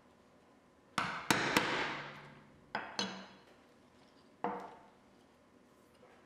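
Brass-headed mallet striking the handle of a bench chisel held upright in a wooden board, chopping the end of a stopped groove: three quick blows about a second in, two more near three seconds and a last knock about four and a half seconds in, each with a brief metallic ring.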